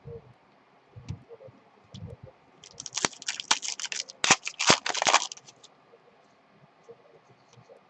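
Trading-card pack wrapper crackling as it is torn open and crumpled by hand, a dense run of sharp crinkles lasting about two and a half seconds, preceded by a few soft knocks of cards being handled.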